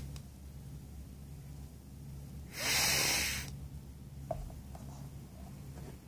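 Rubber chicken toy giving one breathy rush of air, about a second long, a little over two seconds in, without its scream. A faint short squeak follows about a second later.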